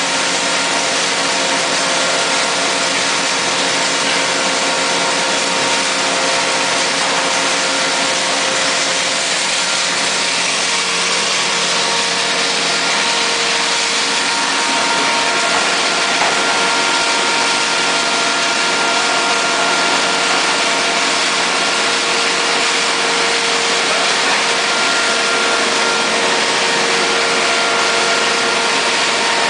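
Turmeric crushing and grinding machinery running steadily: a loud, even rush of noise with a constant mechanical hum.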